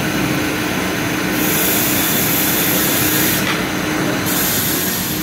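Workshop power tools running steadily, with a constant motor hum under a grinding hiss that grows brighter and duller every second or two.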